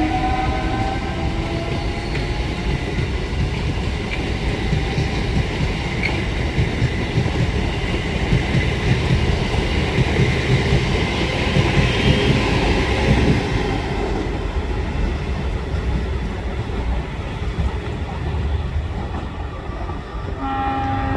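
A train accelerating out of a station: a rising motor whine in the first second gives way to a steady rumble of wheels on the rails that grows louder until about two-thirds of the way through, then eases. Near the end a steady chord of several tones starts up, typical of a train horn.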